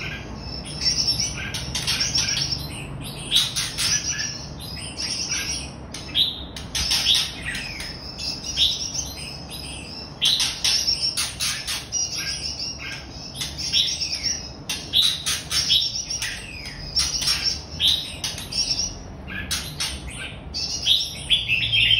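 Red-whiskered bulbul singing: a long run of quick chirping, warbling phrases with rising and falling notes, broken by a couple of brief pauses.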